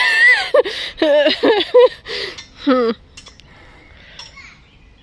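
A high-pitched voice making wordless, wavering vocal sounds for about three seconds, then it stops and only faint background remains.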